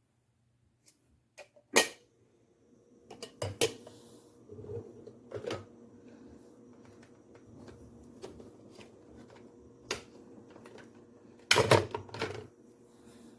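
Sharp clicks and knocks of hard objects being handled: a few single ones early on, a quick pair a little later, and a loud cluster of them near the end, over a faint steady hum.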